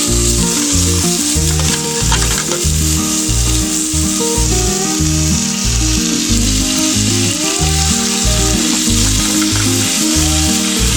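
Pork and napa cabbage sizzling steadily in a hot frying pan as they are stir-fried, heard under background music with a regular beat.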